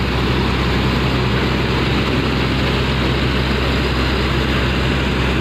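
Heavy diesel engine of an Eicher tipper truck running as it drives slowly past close by, over a steady low engine drone.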